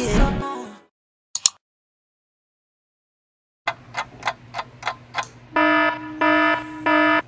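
Alarm clock ticking about three times a second, then beeping loudly in three half-second bursts.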